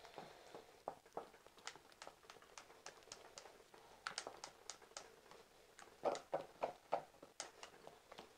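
Wooden spoon beating thick gram-flour batter in a glass mixing bowl: faint, irregular taps and clicks of the spoon against the glass, a few a second, with a run of louder taps about six seconds in.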